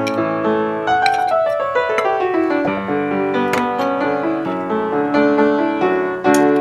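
Background piano music, with a quick run of falling notes about a second in.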